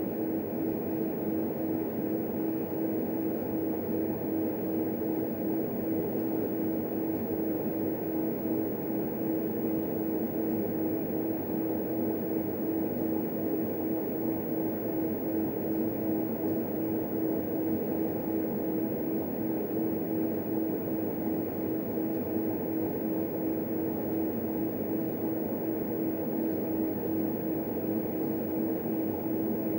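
Cooling fan of an HP 8568B spectrum analyzer running: a steady hum with one held low tone.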